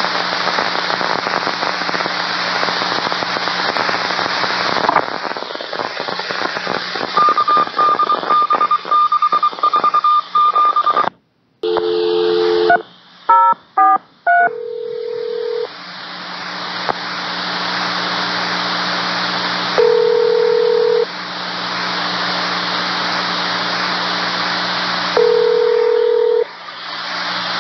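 Railroad radio channel heard through a scanner: steady static hiss over an open carrier. About seven seconds in comes a pulsing high beep lasting a few seconds, then a brief dropout and a quick string of touch-tone (DTMF) dialing tones. Single lower beeps follow three times, spread through the rest.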